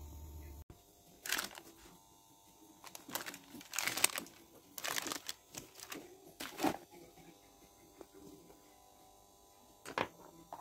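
Handling noises at a printmaking worktable: scattered rustles and knocks of paper and tools being moved. The noises come in irregular bursts through the first seven seconds, with one more near the end. A low hum cuts off under a second in.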